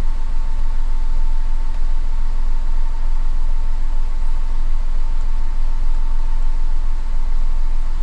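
Ford F-150 pickup's engine idling, heard from inside the cab: a steady low rumble with a thin, steady higher tone above it.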